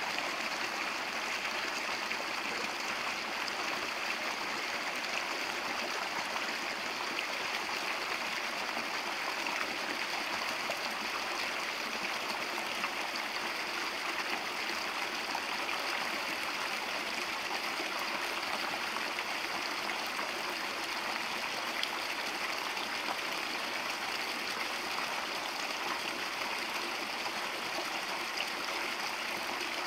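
Small rocky forest brook running steadily, its water spilling over stones into a shallow pool with an even, unbroken rush.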